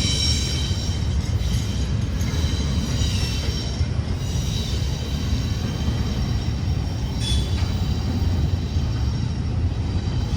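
A train rolling past with a steady rumble of wheels on rail. High-pitched wheel squeal comes and goes over it and dies away near the end.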